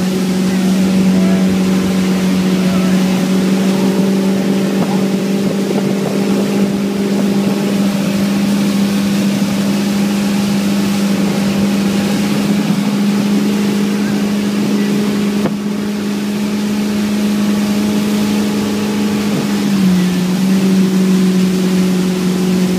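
Motorboat engine running steadily at towing speed, a constant drone over the hiss of the churning wake and spray. A little before the end the engine note drops slightly and holds.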